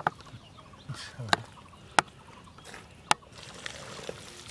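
Bare hands digging into soft, wet pond mud, squelching, with four sharp wet smacks.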